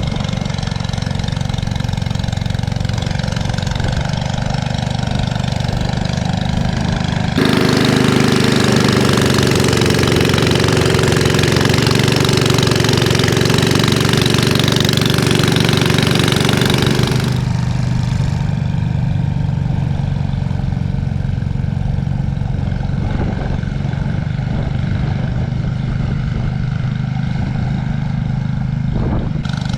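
Ariens Classic 24 two-stage snow thrower's single-cylinder engine running steadily under load while it digs into a drift of heavy, wet snow. For about ten seconds in the middle the sound grows louder and fuller.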